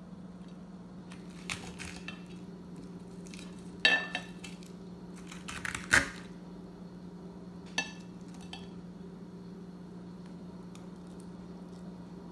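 Dishes and metal utensils clinking: a few sharp clinks that ring briefly, the loudest about four and six seconds in, over a steady low hum.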